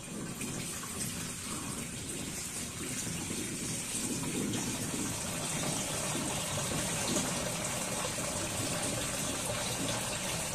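Water being poured from a bucket into the plastic water tank of a 38-litre Hindware air cooler: a steady pour of water into the filling tank, growing louder about four seconds in.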